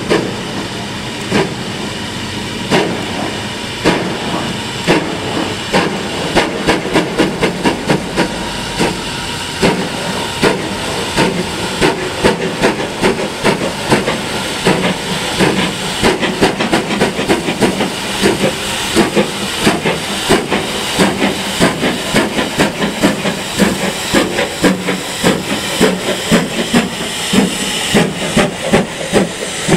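Steam locomotive chuffing under steam, with a steady hiss of steam; its exhaust beats quicken from about one a second to two or three a second as it gathers speed.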